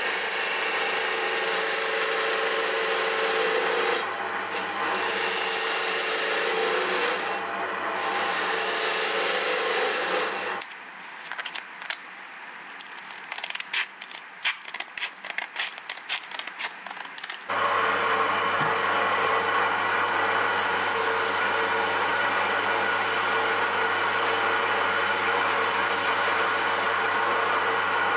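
Wood lathe running with a turning tool scraping the spinning pen blank, with two brief dips. About ten seconds in the lathe stops and scissors snip through sandpaper in quick cuts; a few seconds later the lathe starts again and sandpaper rubs against the turning blank.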